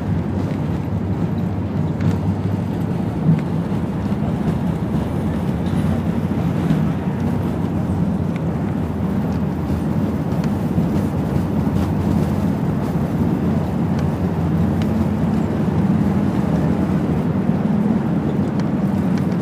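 Airbus A380 cabin noise beside the wing: a steady low rumble and hum from the four-engine airliner's engines and its rolling on the ground, with a brief thump about three seconds in.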